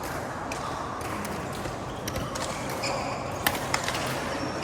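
Badminton play on an indoor court: a few short shoe squeaks, then two sharp hits about three and a half seconds in, a third of a second apart.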